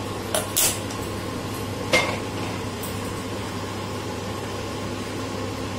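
Gas stove burner freshly lit, its flame burning with a steady low rush. A couple of sharp clicks come in the first second, and a single metal clank with a short ring about two seconds in as a kadai is set down on the burner grate.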